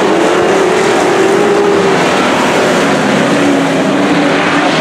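Dirt-track race truck engines running hard around the oval, loud and steady, their pitch falling about two seconds in.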